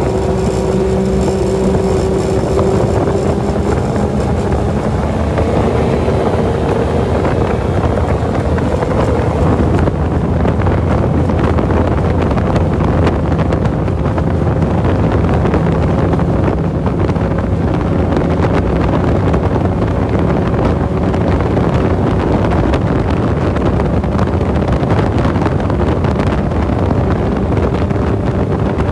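Tiller-steered outboard motor on an aluminium tinny running flat out, its pitch climbing slowly as the boat accelerates to top speed, with heavy wind noise on the microphone. The motor is raised 20 mm on the jack plate and turns an 18-pitch propeller for an engine-height test.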